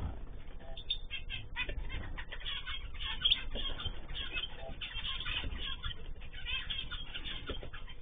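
Many small cage birds chirping and calling at once: a dense, overlapping chatter of short high chirps that thickens after the first second.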